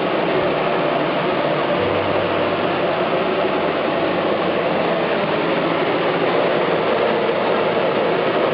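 Steady mechanical running noise, with a low hum that comes in about two seconds in and holds.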